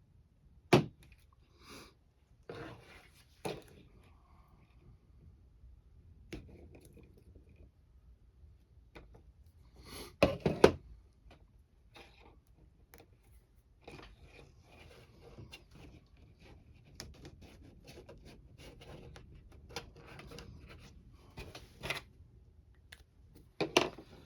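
Hand work on a camper window and its rubber gasket: scattered sharp clicks and knocks with quieter scraping and rustling between them. The loudest clicks come about a second in, in a quick cluster around ten seconds in, and near the end.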